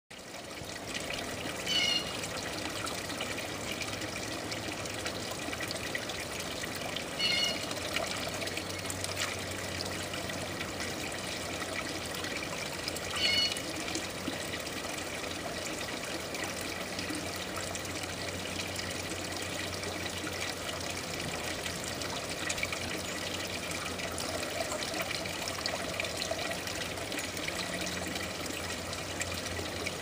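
Garden pond fountain: water splashing steadily from a spout into a basin and trickling over rocks into the pond. Three short high chirps sound over it, about every five or six seconds in the first half.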